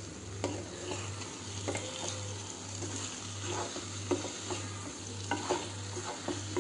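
A spatula stirring paneer, onion and capsicum in thick masala in a non-stick pan, with a steady frying sizzle and irregular scrapes and knocks of the spatula against the pan.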